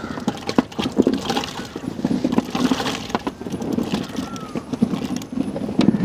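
White button mushrooms knocking and clattering against a large aluminium tray as hands turn them over. Some handfuls drop into an aluminium pot of water for washing. The clicks and knocks are dense and uneven throughout.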